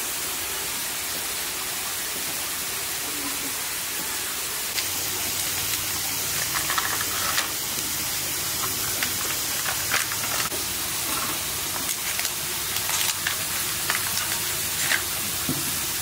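Steady hiss, with light clicks and scrapes from about five seconds in as a spoon works frozen fruit treats in small plastic cups.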